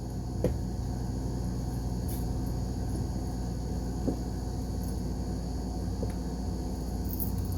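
Steady low background hum with a few faint small clicks, one about half a second in and another about four seconds in.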